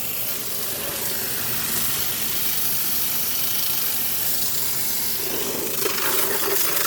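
Garden hose spraying water through a window air conditioner's condenser coil: a steady hiss of spray on the fins, flushing out built-up dirt.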